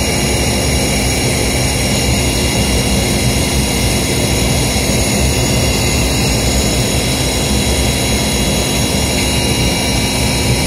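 York rooftop gas packaged unit running in heat, its burners and blowers making a steady, unbroken noise with a constant hum, while the newly installed heat exchanger burns off.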